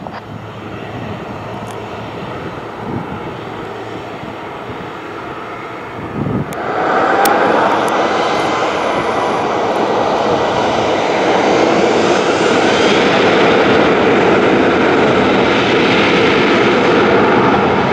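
Ryanair Boeing 737-800's twin jet engines running at low power, then spooling up sharply about six and a half seconds in with a faint rising whine, and running loud and steady at takeoff thrust as the takeoff roll begins.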